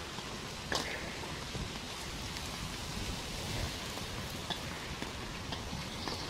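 Steady outdoor noise, an even hiss with a low rumble beneath, broken by a few faint clicks, one just under a second in.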